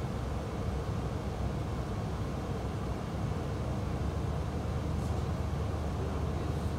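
Steady low rumble of a suburban passenger train running, heard from inside the carriage. A couple of faint clicks come near the end.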